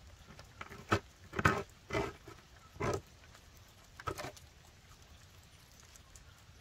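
A handful of short wet slaps and knocks as a salmon and a fillet knife are handled on a plywood cutting table, five in the first four seconds or so, then quiet handling.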